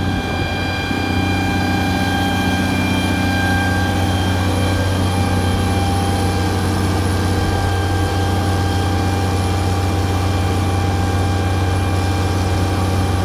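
Tractor-driven PTO pressure pump running steadily under power, a constant low engine hum with a steady high whine over it.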